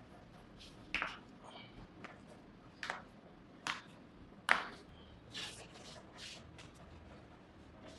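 Sharp cracks and clicks from a chiropractic neck and back adjustment, five or so spaced about a second apart, the loudest a little past the middle.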